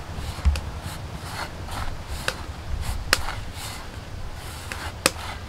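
Fingertips rubbing and scraping dry semolina and gram flour around an earthen plate, soft and scratchy, with a few sharp ticks scattered through.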